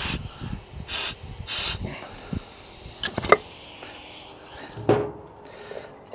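Short bursts of compressed air hissing from a blow gun into the brake port of a Bobcat T190 drive motor, pushing the spring-applied brake piston out of its bore. A few sharp metal clicks follow around three seconds in, and a single knock about five seconds in.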